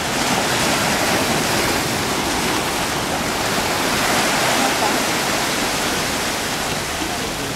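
Sea surf washing along the shore, a steady rushing noise that swells slightly midway.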